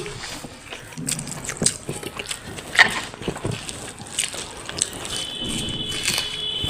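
Close-up eating sounds of someone eating rice and curry by hand: chewing and lip-smacking, heard as scattered small wet clicks.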